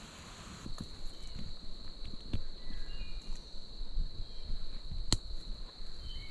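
Woodland ambience: a steady high insect drone sets in about a second in, with a few short bird chirps. Scattered soft low thuds and one sharp click about five seconds in.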